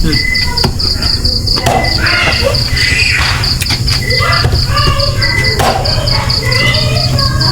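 Insects chirping in a steady high pulsing trill, about four to five pulses a second, with a few sharp knocks and faint voices in the background.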